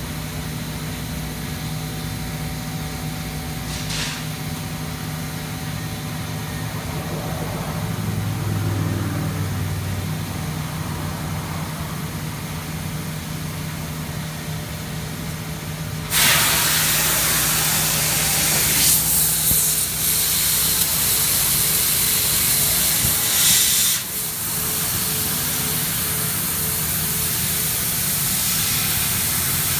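Platino 1530 CO2 laser cutting machine running with a steady hum. About halfway through, a loud, even hiss starts suddenly as the cutting head's assist-gas jet blows through the nozzle while it cuts the steel sheet. The hiss swells twice and briefly dips.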